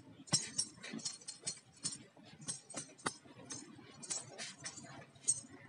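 Silver anklet (payal) bells jingling in short, irregular clinks as bare feet step on dry, hard earth.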